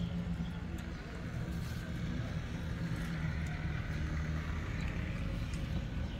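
Steady low engine hum with a constant pitch.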